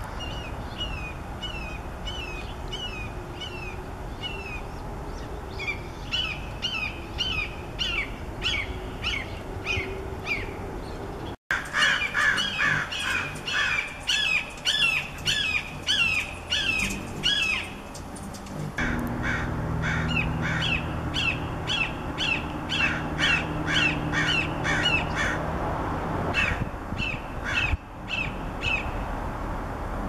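Red-shouldered hawks calling in long runs of repeated, down-slurred screaming calls, about two a second. After a break about a third of the way in, the calls come louder and overlap, as if from more than one bird.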